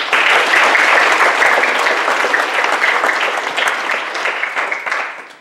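Congregation applauding. The clapping starts suddenly and dies away near the end.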